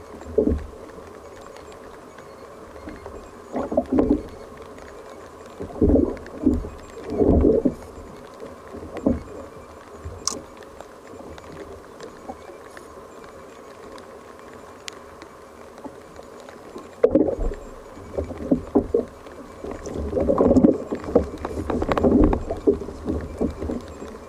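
Small waves slapping and knocking against the hull of a sit-on fishing kayak in irregular bursts, busiest near the end.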